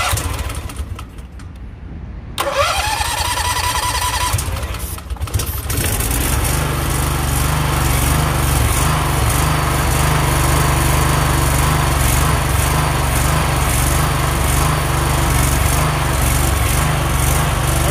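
Honda GX610 18 hp V-twin engine on a pressure washer being electric-started on starting fluid: it is cranked, catches a couple of seconds in with a rising rev, runs unevenly briefly, then settles into steady running from about six seconds. The engine sounds healthy.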